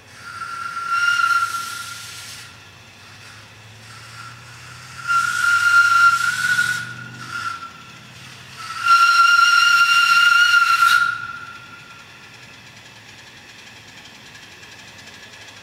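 Steam whistle of the live-steam model locomotive Waimanalo Sugar Co #3, a steady single-note whistle blown in a long, long, short, long pattern: the grade-crossing signal. A faint low rumble of the approaching engine lies under it.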